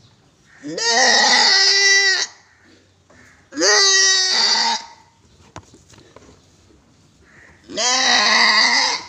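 Goat bleating loudly three times, each a long drawn-out call of about a second and a half.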